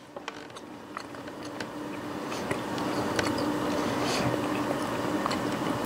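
A man chewing a bite of chicken, with a few light clicks of a fork on a plate, over a steady background hum that slowly grows louder.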